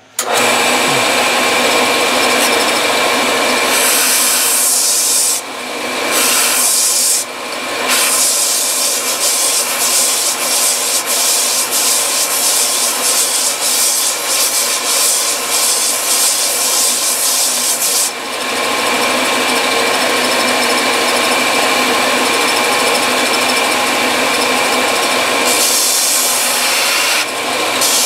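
Vertical belt sander running steadily, with a rubber recoil pad on the butt of a wooden rifle stock pressed against the belt to grind it to shape. The sound starts abruptly and dips briefly a few times as the work is shifted on the belt.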